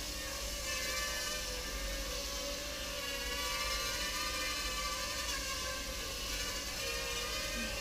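Small quadcopter's propellers and electric motors whirring as it hovers and flies low, the steady whine wavering slightly in pitch as the throttle changes.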